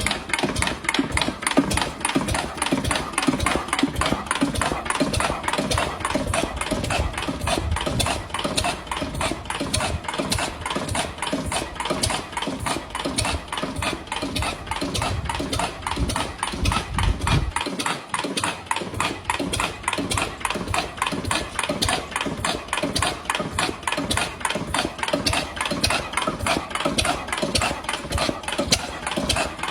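Overhauled old engine running at a steady idle, firing in an even, rapid chug.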